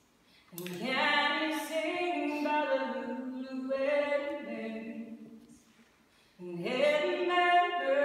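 Live unaccompanied singing: a first long sung phrase starting about half a second in and fading by about six seconds in, then a second phrase starting shortly after.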